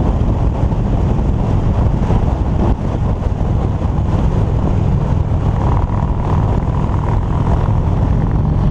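Touring motorcycle cruising at a steady speed on the open road: a steady low engine drone mixed with wind and road rush.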